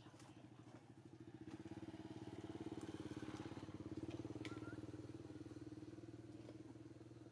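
Faint motorbike engine passing by, a steady running drone that swells over the first few seconds and fades toward the end.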